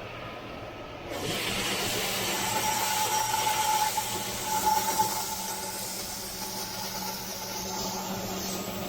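Heavy farm machinery running steadily with a low hum and a high whine; a loud hiss comes in suddenly about a second in and carries on.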